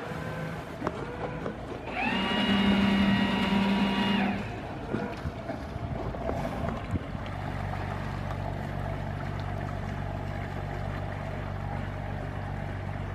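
Stevens 1140 motor cruiser manoeuvring: its bow thruster whines for about two seconds, spinning up and winding down, then the boat's inboard engine runs steadily with a low hum.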